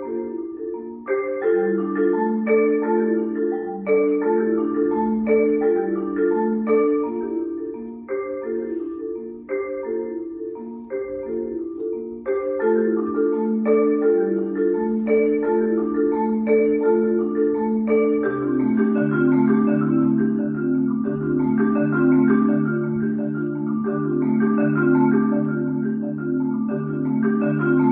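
Concert marimba played solo with mallets: quick patterns of ringing notes repeated in short phrases. About two-thirds of the way through, a low repeated bass note joins in and the texture grows denser.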